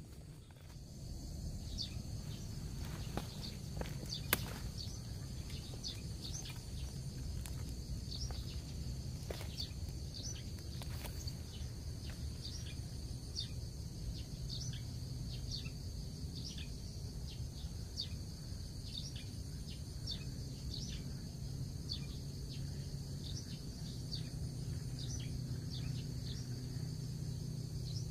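Outdoor ambience of insects and birds: a steady high insect drone with many short high chirps repeating throughout, over a low rumble. A few sharp clicks come in the first third, the loudest about four seconds in.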